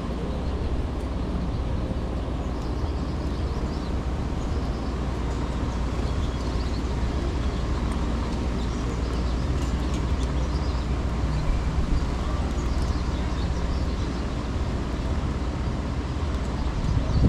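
Steady outdoor ambience of wind and distant city traffic, a deep rumble, with faint high chirps of small birds now and then.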